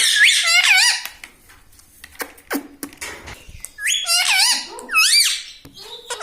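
Indian ringneck parrot giving high, squeaky, warbling calls in three short bursts: one at the start, then two close together about four and five seconds in.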